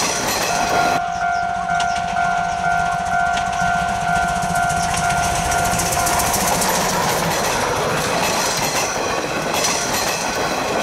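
C12 66 steam tank locomotive sounding one long, steady whistle of about six seconds as it approaches, its exhaust beating as it works. It then rolls past with its wooden-era coaches clicking over the rail joints.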